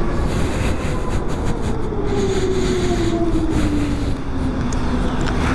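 2012 Zero DS electric motorcycle's drivetrain whining, its pitch falling steadily as the bike slows, over a steady rush of wind and road noise.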